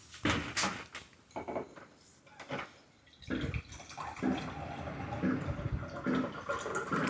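Metal clinks and knocks of a hand socket being worked on a suspension bolt, followed from about three seconds in by a steady hiss.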